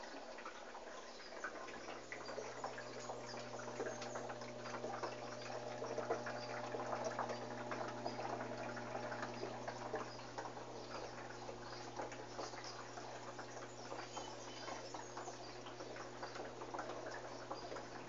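Electrolux 13 kg washing machine running: a steady low motor hum that comes in about a second and a half in, under a constant patter of small irregular clicks.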